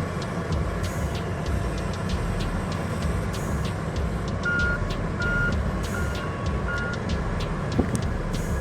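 Heavy mining machinery running with a steady low engine rumble; about halfway through, a reversing alarm beeps four times.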